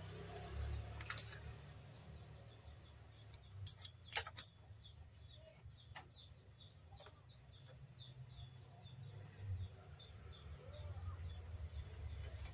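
Faint clicks and taps of a circuit board and its wire connectors being handled, the sharpest about one and four seconds in. Behind them a bird chirps in a steady run of short, high notes, about three a second, from a couple of seconds in until near the end.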